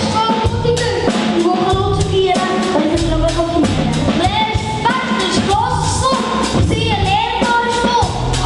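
A song: a voice singing a melody over a steady drum beat and backing music.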